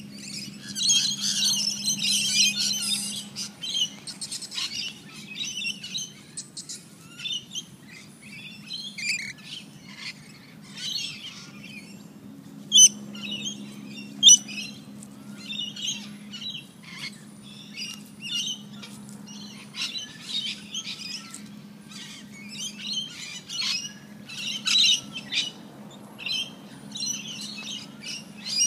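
Birds chirping and calling in quick, short bursts, busiest in the first few seconds, over a low steady hum. Two sharp clicks, about a second and a half apart, a little under halfway through.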